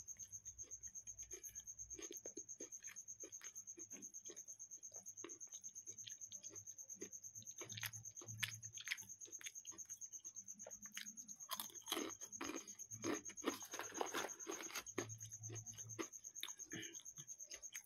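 Someone eating crisp fried snacks: irregular small crunches and chewing, thicker in the second half.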